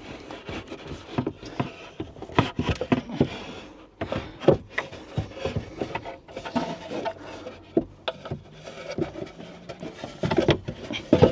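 Irregular wooden knocks, bumps and scraping as a heavy AGM leisure battery is worked into a snug plywood battery box, with a cluster of louder knocks near the end.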